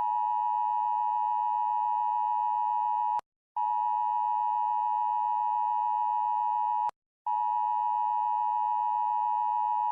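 Emergency alert system attention tone: a steady, high-pitched electronic tone broken by two short silences, about 3 and 7 seconds in.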